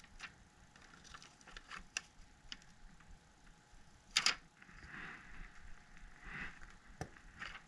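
Small clicks, taps and crinkling from handling a new adhesive sheet on a phone frame, with a short crackly burst about four seconds in and a sharp click near the end.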